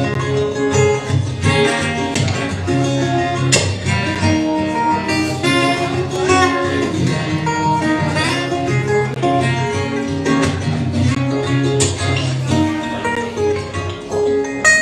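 Acoustic guitar music: a steady run of plucked notes.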